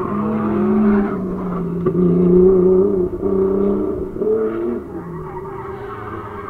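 Drift cars' engines revving hard, the pitch climbing and dropping as the throttle is worked, with short breaks about a second in, three seconds in and around four and a half seconds in. Tyres skid under a car sliding sideways through the corner.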